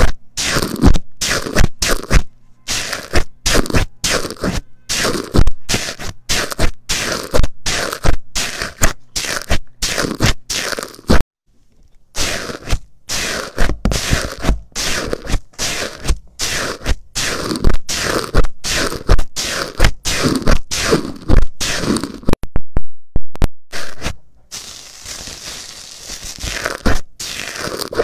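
A handheld microphone pressed again and again into bubbly, foamy slime, heard right at the microphone: a quick run of squishing presses, about two a second, with a short break about eleven seconds in.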